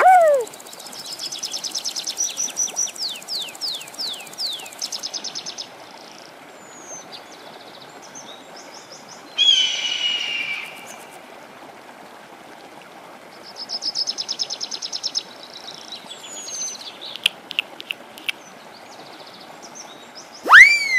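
Birds calling: runs of rapid chirping trills, a few quick downward-sweeping whistles, and a harsher call about ten seconds in, over a steady hiss. A loud call that slides down in pitch comes at the start and another near the end.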